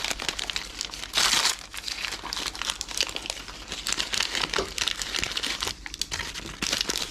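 Packaging crinkling and rustling as the pieces of a Miniverse Make It Mini kit are handled and unwrapped, with a louder crinkle about a second in.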